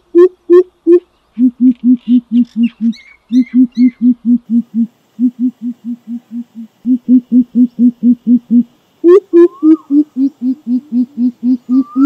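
Greater coucal (crow pheasant) giving its deep, booming hoot call: long runs of low 'poop' notes, about four a second. The notes drop to a lower pitch about a second in, break off briefly a few times, and come back higher and louder at about nine seconds.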